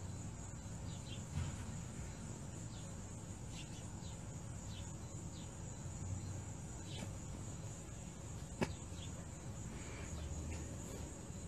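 Faint outdoor background: a steady high-pitched whine over a low hum, with scattered short faint chirps and one sharp click about three-quarters of the way through.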